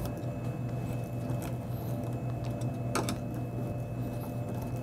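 Hand screwdriver tightening the mounting screws of a card reader into a vending machine door panel: faint scratchy ticks and clicks, one sharper click about three seconds in, over a steady low hum.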